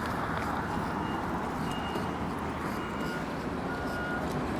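Steady wind and road noise from riding an e-bike along a street, with faint short high beeps now and then.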